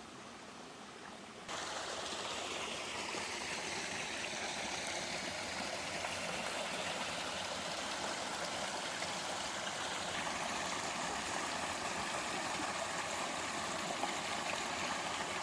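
Mountain stream water rushing steadily over a small two-tiered waterfall; the sound jumps abruptly louder about a second and a half in.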